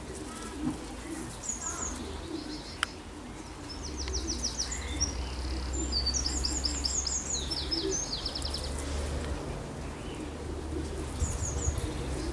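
Wild songbirds singing: quick trills of short high chirps, thickest in the middle and again near the end, over a low steady rumble, with one sharp click about three seconds in.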